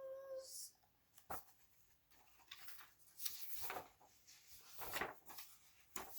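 The last held note of a woman's sung line ends about half a second in, followed by quiet rustles and a few soft clicks of a picture book being handled as its page is turned.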